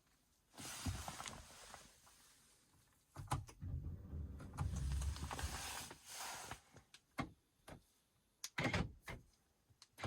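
BMW E93 making the odd noise heard when its doors are locked: an electric mechanism runs twice, the second, deeper run lasting about three seconds, followed by a string of sharp clicks near the end.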